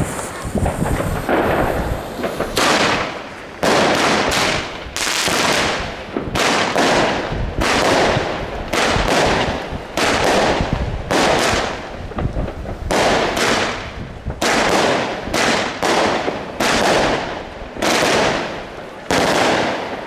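Broekhoff Crown Collection "Brocade Wave" fireworks cake, 16 shots from 20 mm tubes, firing. The shots start about two and a half seconds in and follow roughly once a second, each a sudden report that trails off.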